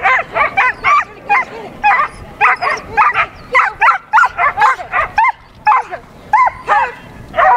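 A dog barking and yipping over and over in short, high-pitched yips, a few a second with brief gaps, as it runs an agility course.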